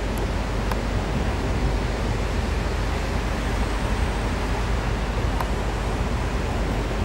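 Steady rushing noise of a double-deck passenger train rolling slowly through the station, with a few faint clicks.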